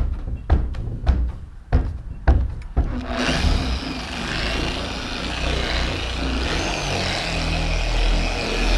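Several sharp clicks and knocks, then, about three seconds in, a dual-action orbital machine starts and runs steadily, wet sanding car paint with a 2500-grit disc.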